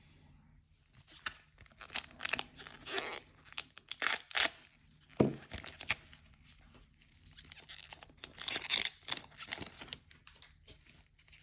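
Foil wrapper of a trading card booster pack being torn open and crinkled, in irregular bursts of rustling.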